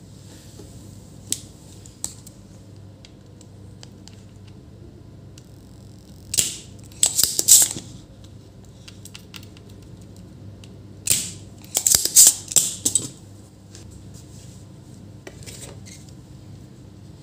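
Desoldering a MOSFET from a TV power supply board with a soldering iron and a spring-loaded desoldering pump: two clusters of sharp clicks and short hisses, about six seconds in and again around eleven to thirteen seconds in, with small handling clicks between.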